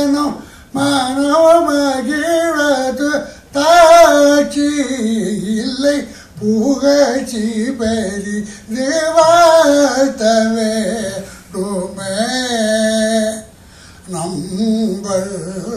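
A man singing unaccompanied into a microphone: long held notes that waver and slide between pitches, in phrases with short breaths between them.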